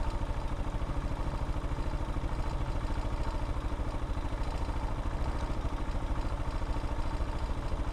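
Air-cooled 250 cc single-cylinder engine of a Vitacci Raven dirt bike running steadily at low revs, with an even, quick pulse and little change in pitch.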